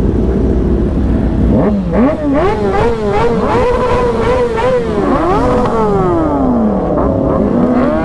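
Sport motorcycle engines revving, with a low idle rumble for the first couple of seconds and then quick rev blips, the pitch rising and falling repeatedly, with more than one engine going at once.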